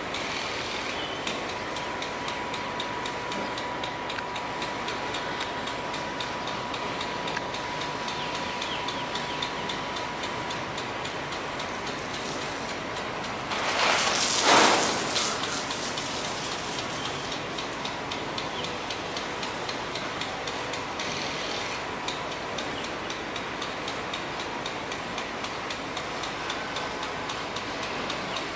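Rain gun sprinkler running: a steady hiss of water spray with fast, even ticking. Midway there is a louder rush of spray lasting about two seconds.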